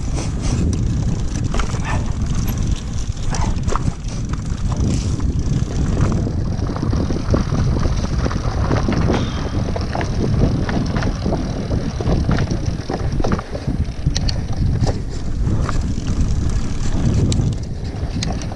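Mountain bike being ridden over a bumpy, sandy forest trail: tyres running on dry sand and dirt, with frequent knocks and rattles from the bike over the bumps, and wind rumbling on the microphone.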